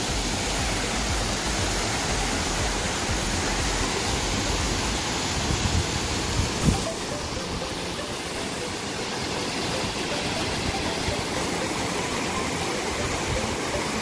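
Multi-tiered mountain waterfall pouring over rock ledges into a rocky pool: a steady rush of falling white water.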